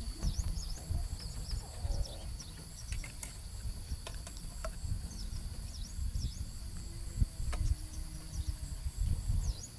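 Insects calling in a steady, continuous high drone, with short high chirps here and there. Irregular low rumbling and a few clicks sit underneath.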